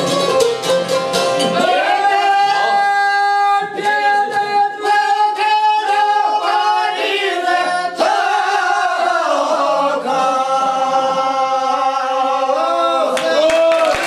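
Albanian folk song: a çifteli (two-string long-necked lute) is plucked at the start, then from about two seconds in a man sings long, held notes with wavering ornaments over it.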